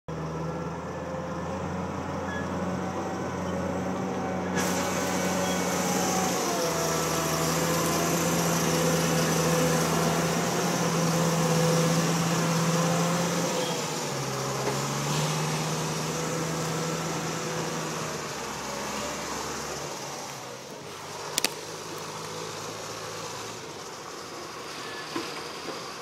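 John Deere skidder's diesel engine running under load as the machine drives over rough ground, its pitch shifting a few times, then fading as it moves away. There is one sharp knock near the end.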